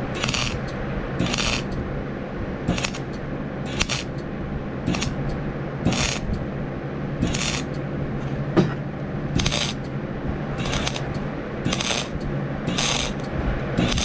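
Wire-feed (MIG-type) welder stitch-welding thin rake steel: short crackling bursts of arc about once a second, each under half a second long, over a steady low hum.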